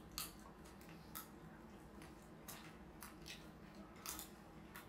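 Faint, scattered crisp crunches and clicks, about half a dozen spread over a few seconds, from people chewing crispy fried noodles and working chopsticks against plates.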